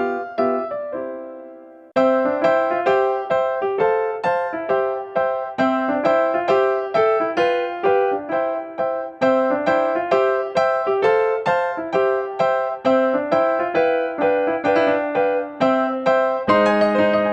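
Background music: a bright electric piano playing quick repeated notes over a rising bass figure, with a short pause about two seconds in.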